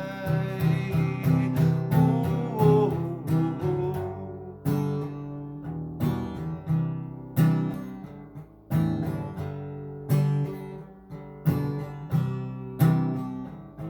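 Acoustic guitar strumming chords in an instrumental break between sung lines of a song.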